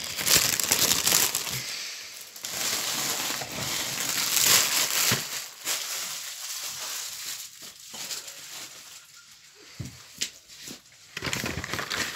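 A doll's packaging crinkling and rustling as it is handled and opened, loudest in the first half, quieter after the middle and picking up again near the end.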